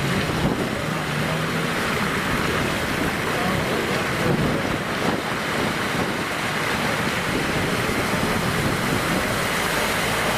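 Cars driving through shallow flood water on a road, their tyres throwing up spray in a steady rushing splash, with engines running underneath.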